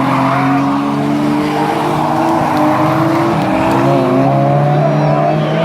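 Rally car engine running hard at high revs, its pitch climbing slowly with a brief dip about three and a half seconds in.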